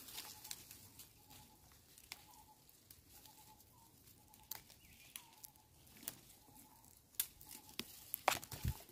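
Small snaps and leaf rustles as young phak wan (Melientha suavis) shoots are broken off by hand and bunched, a few sharper clicks among them near the end. Faint short chirping repeats in the background.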